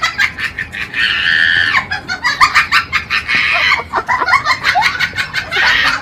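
Rapid chicken-like clucking, broken by longer squawks about a second in and again in the middle.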